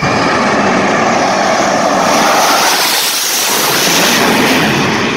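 Jet engine of a jet-powered semi truck running at full thrust during a drag strip pass: a loud, steady rushing noise. It turns brighter and hissier about two seconds in as the truck passes.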